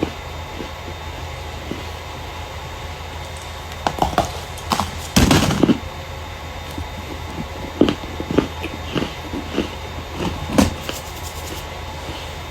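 Starch being crushed and crumbled: scattered crisp crackles, with a denser, louder crunch a little past five seconds in, over a steady low hum.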